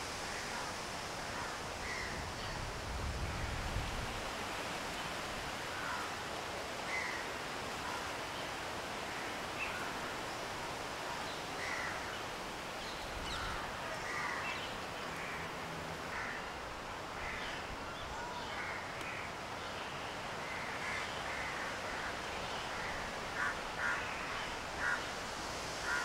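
Strong monsoon wind rushing steadily through the leaves of teak trees, with gusts rumbling on the microphone a few seconds in and again about halfway. Birds call on and off throughout, with a quick run of short calls near the end.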